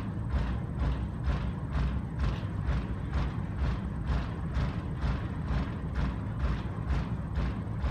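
Rhythmic pulsing from a sound installation inside a corrugated-steel grain bin: short, hissy beats about two a second, over a steady low rumble.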